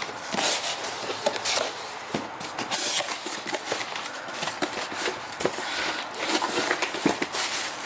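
Rustling and crinkling of packaging, with scattered small clicks and knocks as the light assemblies are handled in their boxes.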